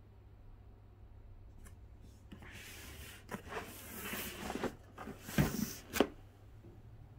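Packaging being handled and opened by hand: rustling and scraping from about two and a half seconds in, with a few sharp knocks, the loudest two near the end.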